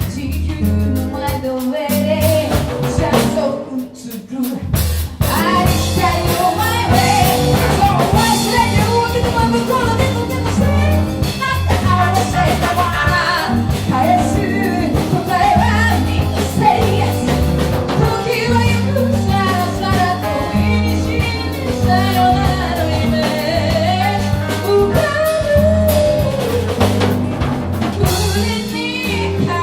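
A band plays a song with a drum kit, bass and a sung melody. The music thins out briefly about three to five seconds in, then comes back in full.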